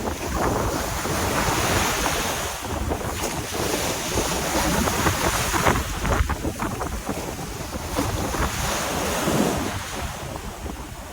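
Storm surf breaking on a beach on a rising tide, with strong wind buffeting the microphone.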